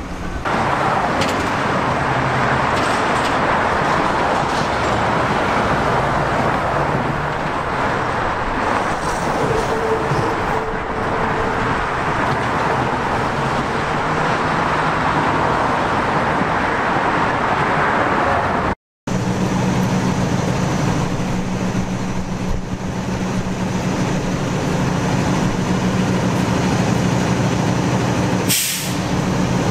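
Heavy city and highway traffic, a steady rush of passing vehicles. After a short dropout, a fire engine's diesel idles with a low, steady hum.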